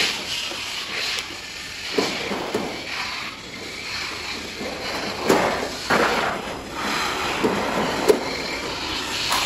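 Long-handled hand shears cutting thin steel sheet, and the cut sheets rasping, flexing and scraping against each other as they are lifted and moved, with a few sharp metallic clicks.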